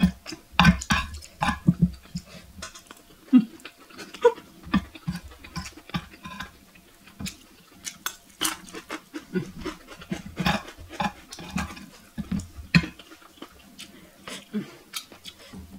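Metal spoon and fork clinking and scraping against a glazed clay plate while food is scooped up, in irregular clicks and short scrapes.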